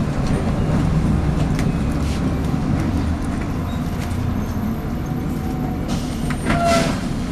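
MAN 18.240LF bus engine running steadily with the bus under way, heard from inside the saloon, with a few clicks and rattles about six to seven seconds in.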